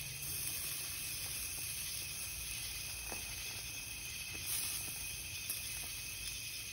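Steady hiss of a gas grill cooking burger patties: the burners and the meat sizzling on the grate.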